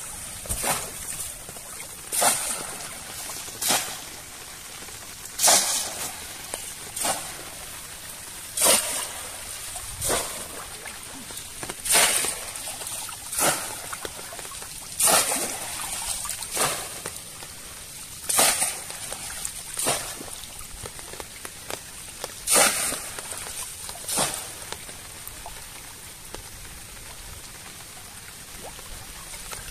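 Bamboo plunge-basket fish trap pushed down into shallow water over and over, a splash about every one and a half to two seconds with water sloshing between. The strokes stop a few seconds before the end.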